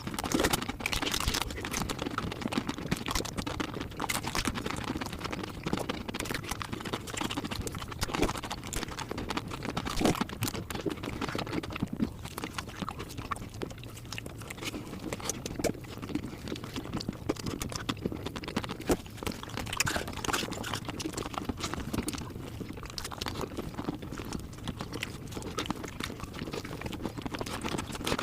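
Mukbang eating sounds played at five times normal speed: a dense, rapid patter of chewing, crunching and wet mouth clicks.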